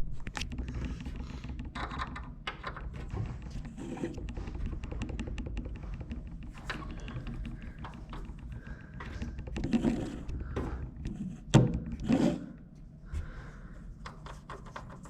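Screwdriver backing a screw out of the cover of a Fujitsu Esprimo E520 desktop PC: scattered small clicks and light metal knocks from the driver and handling of the case, with two louder knocks about three-quarters of the way through.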